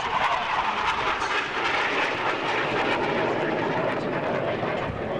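Jet noise from a BAE Hawk 127 trainer's single Rolls-Royce Turbomeca Adour turbofan as the jet banks hard in a display pass: a steady, loud rushing sound that turns brighter in the first second or two.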